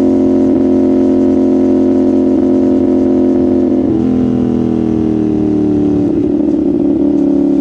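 CFMoto 450SR's 450 cc parallel-twin engine and exhaust, running at steady revs on the move. About four seconds in the pitch steps down abruptly, then sinks slowly for a couple of seconds before holding steady again.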